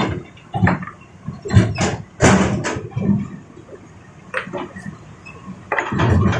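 Large rocks knocking and scraping against an excavator bucket and each other, in about eight irregular heavy bursts.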